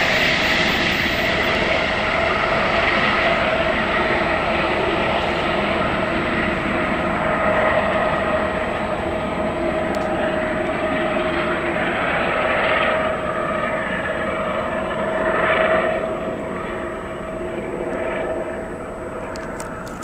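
Aérospatiale SA365N1 Dauphin twin-turbine helicopter climbing away after take-off, its engines and rotors running with a steady whine that gets quieter over the last few seconds.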